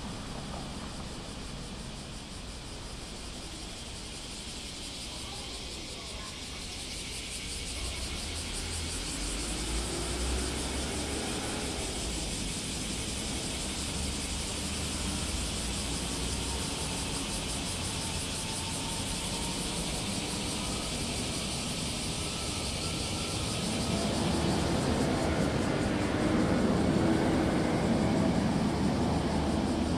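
Motor traffic passing on a city street over a steady hiss. A louder vehicle approaches and goes by in the last few seconds.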